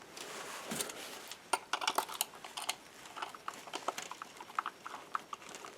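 Screwdriver driving screws into the plastic body of a Buzz Lightyear action figure: a run of small, irregular clicks and ticks of metal and plastic being handled.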